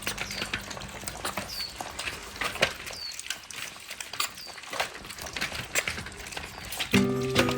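Dogs chewing and crunching on bones: a dense, irregular run of cracks and clicks, with a few short high chirps among them. Music comes in near the end.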